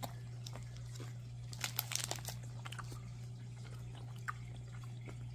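Faint crunches and clicks of a buffalo and pork meat snack stick being chewed, thickest about two seconds in, with crinkles from its plastic wrapper, over a steady low hum.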